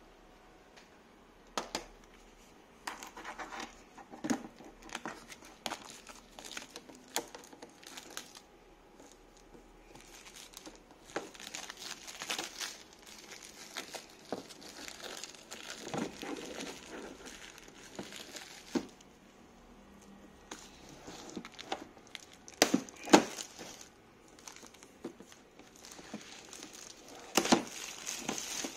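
Clear plastic wrapping crinkling and rustling as it is handled and pulled off a resin tank, with scattered sharp clicks and taps. The loudest crackles come a little after the middle and again near the end.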